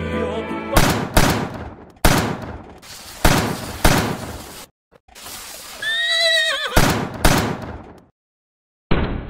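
Mariachi music stops about a second in, cut off by a run of sharp loud bangs with ringing tails, about eight in all. A horse whinnies once about six seconds in, a call that rises and then falls.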